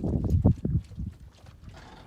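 A dog vocalising excitedly, a loud rough burst of whines and yelps in the first second that then dies down.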